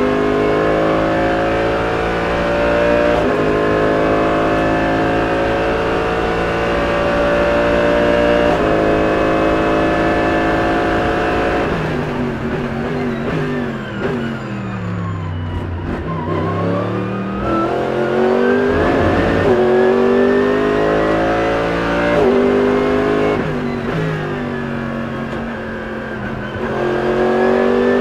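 Mercedes-AMG GT3 race car's naturally aspirated 6.2-litre V8 heard from inside the cockpit, accelerating through the gears with quick upshifts. About twelve seconds in the revs fall away under braking through a run of downshifts, then it accelerates and upshifts again.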